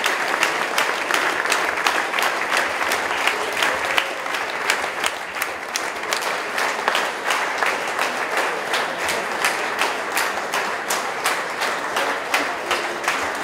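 A large audience applauding, a dense wash of many hands clapping that falls into a rhythm of about two claps a second from a few seconds in.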